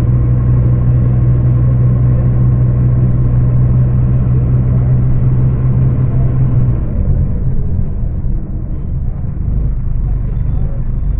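Scania K250UB bus's five-cylinder diesel engine running hard at high revs with a steady drone. About seven seconds in the steady note drops away, leaving a lower, rougher rumble, and a faint high squeal comes in near the end.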